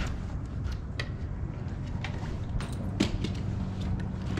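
A series of light knocks and clicks from handling gear on a fishing boat, the sharpest about three seconds in, over a steady low hum.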